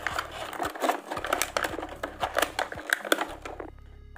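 Cardboard earphone box and its clear plastic tray being handled as the earphones are pulled out: a quick string of scrapes, crinkles and small knocks that dies down near the end.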